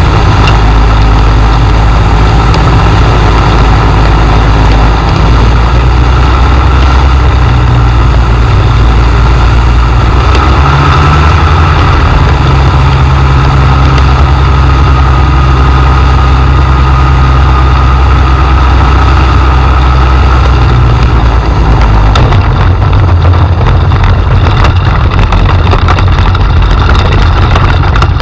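Microlight trike's engine running loud from the open cockpit during the approach and landing, its note shifting several times as the throttle is changed. From about two-thirds of the way in, a rougher rattling rumble joins it as the wheels roll on the grass strip.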